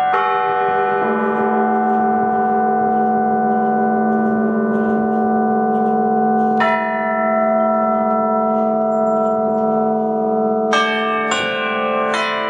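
Set of bells on a small bell frame (zvonnitsa) rung in slow, sparse strokes, each bell left to ring on and overlap the others. A cluster of bells sounds at the start, a lower bell joins about a second in, another stroke comes near the middle, and three quicker strokes come near the end.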